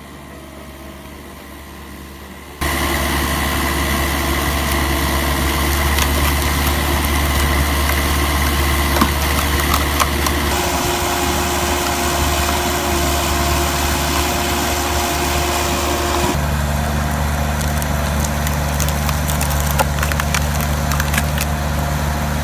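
Engine of a compact loader-mounted log splitter running steadily, with wood cracking and splintering as logs are split. It starts about two and a half seconds in, after a quiet stretch, and the engine's pitch shifts twice.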